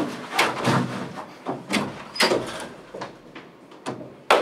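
Irregular knocks and bumps of a person getting up from a desk and moving off, with door knocks among them.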